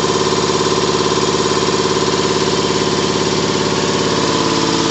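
Industrial air compressor running steadily with an even, loud mechanical drone and a fine rapid pulse.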